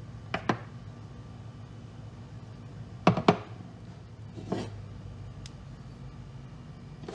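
Steel AR-15 bolt carrier group parts clicking and knocking as they are handled and set down on a wooden tabletop: two light clicks near the start, two sharp knocks about three seconds in (the loudest), and a softer clatter a second later, over a steady low hum.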